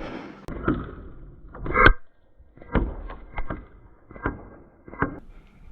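A series of sharp knocks and clicks, most about three-quarters of a second apart, the loudest about two seconds in with a brief metallic ring.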